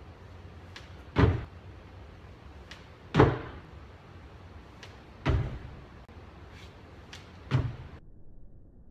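Four heavy thuds about two seconds apart, with fainter taps in between: feet landing during repeated box jumps.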